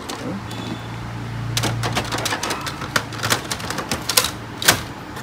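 A Canon 337 toner cartridge being pushed into a Canon imageCLASS laser printer: a run of plastic clicks and knocks, the loudest near the end. Under them a low steady hum starts at once and stops about three and a half seconds in.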